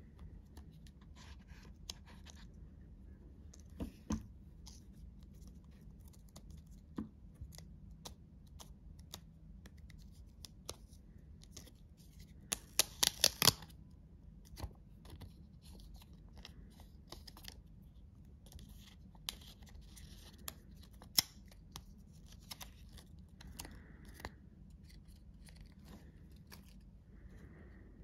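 Plastic protective film being peeled and worked off an AirPods Pro charging case: soft crinkling and rustling with scattered small clicks and taps. About halfway through comes a quick run of five or six loud sharp clicks within a second.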